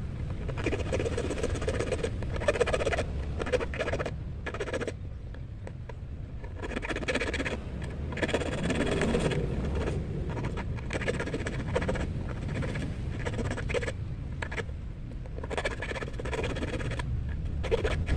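Small half-round needle file rasping in quick short strokes on a steel fishing hook, cutting the barb, in runs of strokes with short pauses between them. A steady low rumble runs underneath.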